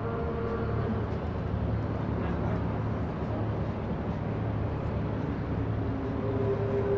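Steady low engine-like hum under continuous outdoor background noise.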